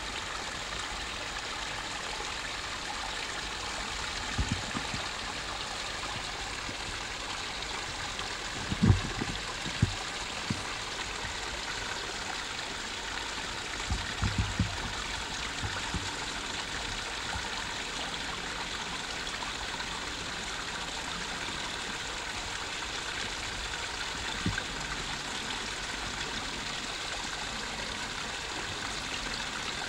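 Water running steadily down a small rock cascade in a garden water feature, trickling and splashing over stones. A few dull low bumps break in, the loudest about nine seconds in.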